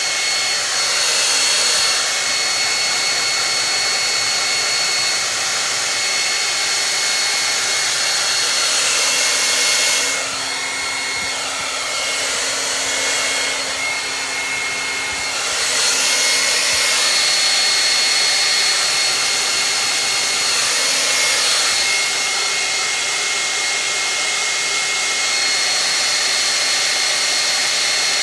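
Handheld hair dryer blowing on the canvas to dry acrylic paint: a steady hiss with a thin high whine from its motor, a little quieter for a few seconds midway.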